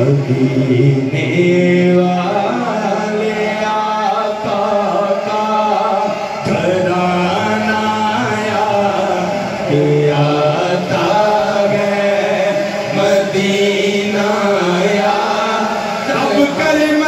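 Two men chanting a naat, an Urdu devotional poem, unaccompanied into microphones. The voices hold long melodic notes that bend slowly from one to the next.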